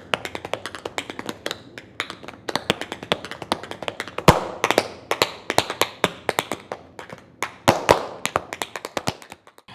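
Tap shoes striking a stage floor in rapid, irregular runs of sharp clicks, unaccompanied by music, with a few harder strikes about four seconds in and again near the end.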